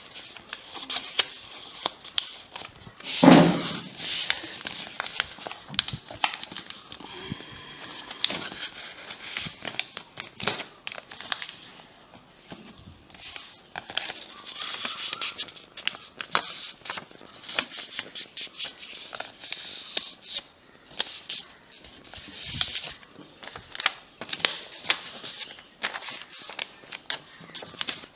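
Sheet of paper being handled and folded by hand, crinkling and rustling in short irregular bursts, with a louder rustle about three seconds in.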